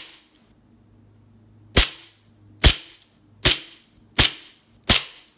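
KWC Nighthawk Custom CO2 blowback 1911 airsoft pistol firing five single shots, starting about two seconds in, a little under a second apart. Each shot is a sharp crack as the CO2 gas drives the slide back in blowback recoil.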